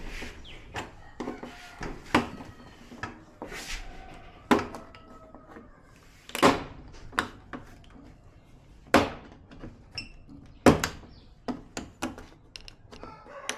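Irregular knocks and clunks, about a dozen, as a flat-screen TV and its parts are handled during disassembly; the sharpest come about halfway and about three-quarters through.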